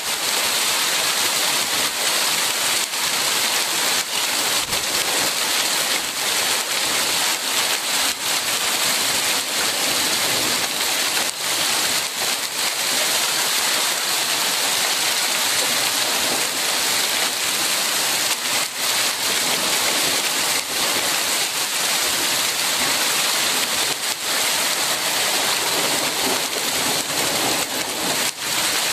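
Small hail and heavy rain pelting a wooden deck and railing: a dense, steady hiss with many sharp ticks of hailstones striking all through.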